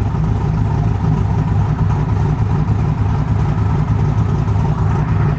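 Chevrolet Silverado pickup's engine running steadily, a low even hum with no revving.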